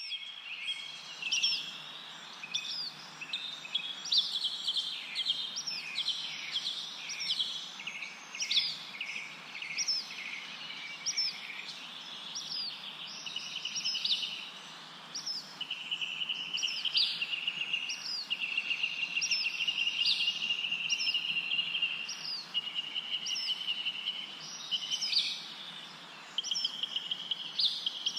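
Small songbirds chirping and trilling continuously, with short, sharp call notes repeating about once a second over a dense, buzzy chatter.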